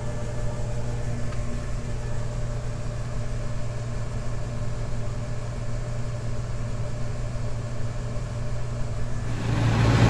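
Tractor engine running steadily, heard from inside the cab, with a constant low hum while the grain cart's auger unloads corn into a semi trailer. About nine seconds in the sound changes abruptly to a louder, rougher engine noise with more hiss.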